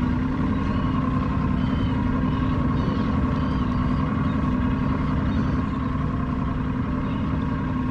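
Boat motor running steadily at low speed, a constant drone with a few faint high chirps about two to three seconds in.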